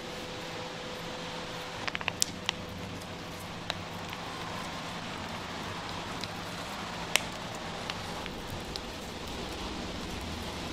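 Steady kitchen background hiss with scattered light clicks and taps, a quick cluster about two seconds in and a sharper single click about seven seconds in, as toppings are laid and squeezed onto bread slices on metal pizza screens.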